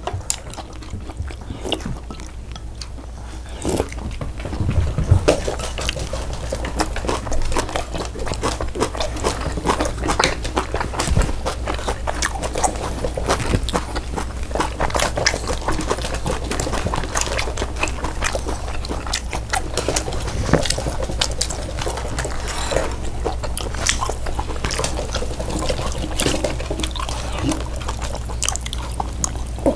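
A continuous run of rapid, wet smacking and clicking eating sounds, fuller from about four seconds in.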